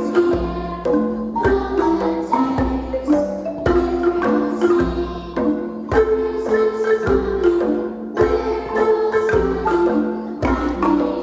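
An ensemble of wooden-bar marimbas with tube resonators playing a tune in quick struck notes over a steady low beat.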